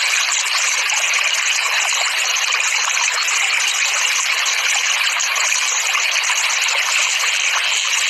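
Steady sound of flowing water, an even hiss with no pauses or changes.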